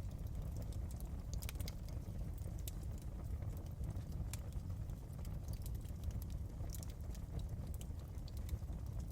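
Fire crackling in a fireplace: irregular sharp pops and snaps scattered over a steady low rumble.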